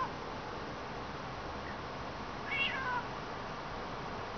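Eurasian jay mimicking a cat's meow: one falling, mewing call about two and a half seconds in, lasting about half a second, with the tail end of another call right at the start.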